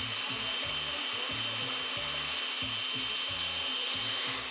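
Countertop blender running at speed, puréeing a green salsa. It gives a steady high whine over a rushing churn, then is switched off near the end and winds down.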